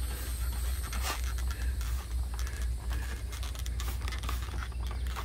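Scratching and scraping handling noises with scattered small clicks, over a steady low rumble.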